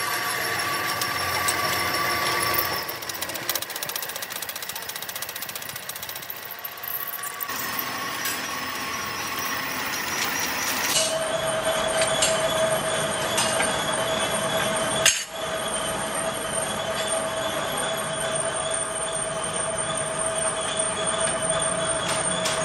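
Belt-driven pillar drill press running and drilling into a metal plate, a steady machine whine whose pitch changes abruptly a few times, with a few light metal knocks near the end.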